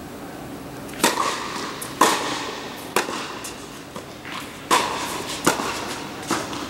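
Tennis ball struck by rackets and bouncing on a hard court during a rally, a string of about six sharp pops that echo in a large indoor tennis hall.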